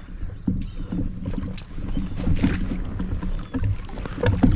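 Water sloshing and splashing around a float tube as it is pushed off and settles afloat, with wind rumbling on the microphone.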